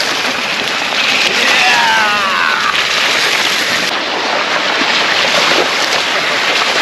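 Rain and mountain bike tyres splashing through a flooded, muddy trail: a steady wet hiss and splashing. About two seconds in, a brief high tone falls in pitch.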